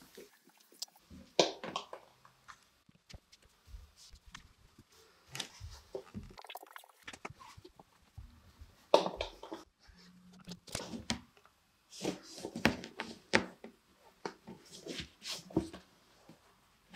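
A cat's paws and claws batting at a toy and scrabbling over a plush-covered cat-tree platform: irregular rustles, scrapes and soft taps, with the busiest flurries about nine seconds in and again around twelve to thirteen seconds.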